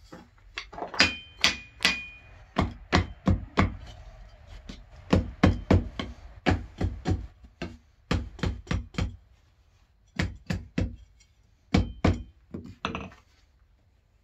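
Mallet blows on a tomahawk's wooden handle, driving the forged head down onto it: a long series of sharp knocks in quick runs of several blows with short pauses between, a few of them with a faint metallic ring.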